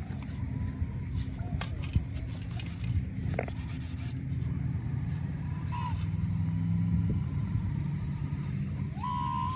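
Radio-controlled hydraulic excavator at work: its hydraulic pump whine over a steady low rumble, with gravel from the bucket clattering into a model dump truck's tipper bed and a few sharp knocks in the first few seconds. The whine grows stronger near the end as the excavator turns back to dig in the gravel pile.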